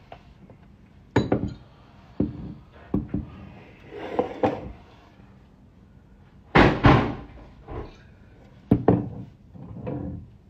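A series of irregular thumps and knocks, about eight in all, the loudest a heavy thump about six and a half seconds in.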